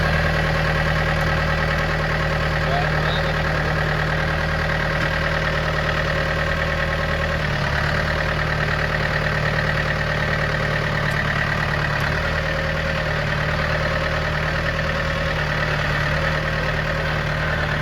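Tractor engine running steadily just after being started, with a slight change in engine note about seven seconds in.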